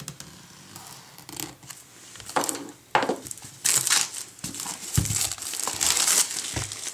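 Plastic shrink-wrap on a cardboard box being slit with a box cutter, then peeled and crinkled off. The irregular crackling rustles get louder after a couple of seconds, and a couple of low knocks come near the end.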